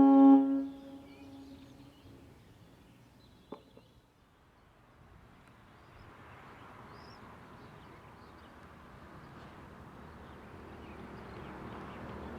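Sonnenburg SES 600 electronic siren's steady fire-alarm tone cutting off about half a second in and echoing away over the next second. Then quiet outdoor ambience with a single click, and a rushing noise that grows steadily louder toward the end.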